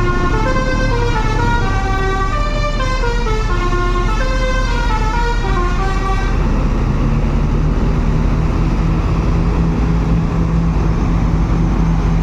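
Tour bus's multi-tone 'telolet' horn playing a quick melody of stepping notes for about six seconds, then stopping, leaving the bus engine running with a steady low drone.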